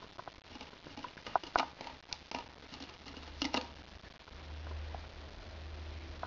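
Light knocks, clicks and scrapes of an empty plastic cream tub as a Pembroke Welsh Corgi puppy mouths it and shakes it about on carpet. The sharpest clicks come about a second and a half in and again about three and a half seconds in.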